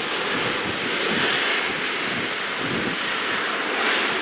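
Boeing 757-200's jet engines in reverse thrust on the landing roll, a steady loud rushing noise as the airliner slows down the runway.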